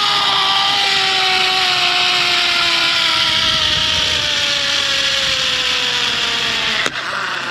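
Zipline trolley pulleys rolling along the steel cable: a whine that falls slowly in pitch as the rider slows toward the end of the line, over a rush of wind. A sharp click comes near the end.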